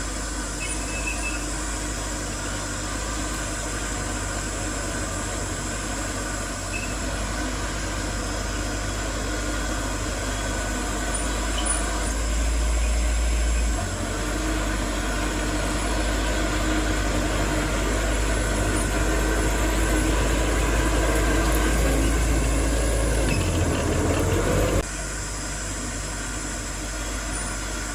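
Diesel engines of heavy earthmoving machinery, dump trucks and a bulldozer, running steadily. The sound grows louder partway through, rises in pitch briefly as an engine revs, then drops off suddenly near the end.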